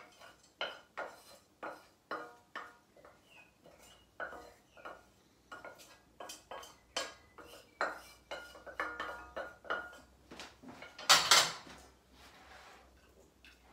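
Metal spoon scraping and knocking against a stainless steel saucepan as spiced par-boiled rice is scooped out: a run of clinks and taps, one or two a second, with one much louder clank near the end.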